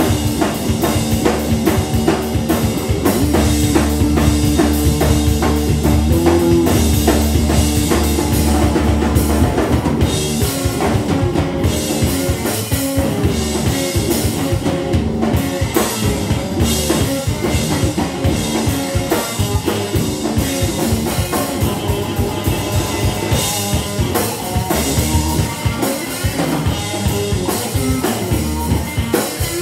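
Live rock band playing: electric guitar through an Orange amplifier over a full drum kit with kick, snare and rimshots. Long held guitar notes give way after about ten seconds to a busier, choppier riff.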